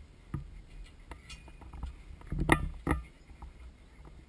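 Knocks and scuffs on a small action camera as Pembroke Welsh corgi puppies nose and bump it while playing, with the loudest thuds about two and a half seconds in, under a low rumble of handling noise.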